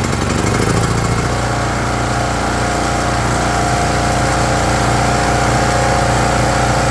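Power Stroke 3500 portable generator's single-cylinder engine running after being started on a fresh spark plug. Its speed settles to an even, steady pitch about a second in.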